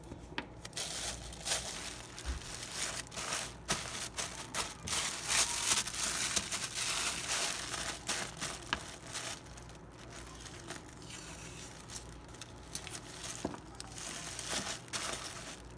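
Wrapping paper rustling and crinkling in irregular bursts as a wrapped package is pressed and handled, with washi tape being pulled from its roll and smoothed on.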